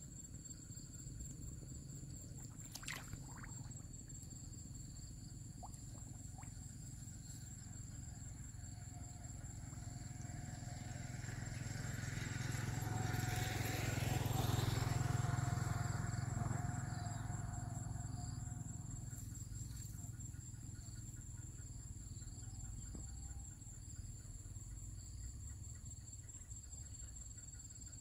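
Insects chirring steadily at a high pitch in the field. In the middle a passing motor vehicle's engine grows louder, peaks and fades away over about ten seconds.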